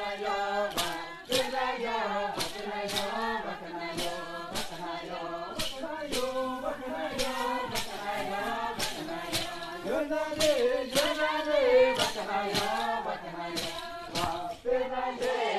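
Group of Bora dancers chanting together in unison, over a steady beat of thumps from stamping feet.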